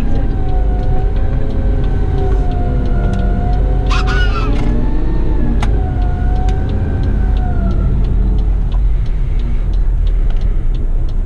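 Garbage truck's diesel engine running, heard from inside the cab: a steady deep rumble with a whine whose pitch slowly rises and falls as the truck pulls out of a roundabout and drives on. A brief hiss sounds about four seconds in.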